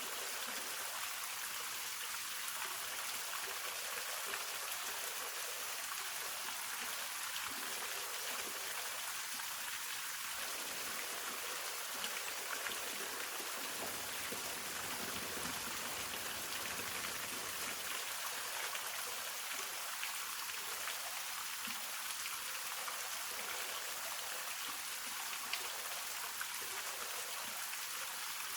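Waterfall: a steady, even rush of falling water and splashing.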